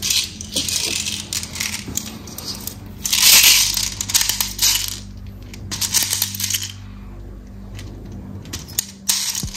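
Airsoft BBs being loaded into a pistol magazine: small clicks and light rattling as the BBs go in, with a louder stretch of rattling about three seconds in.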